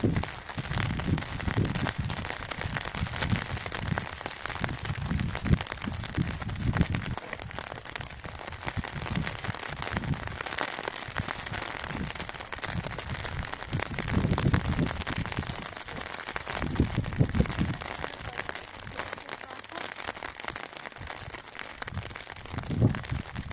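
Steady patter of rain, with low rumbles that swell and fade every few seconds.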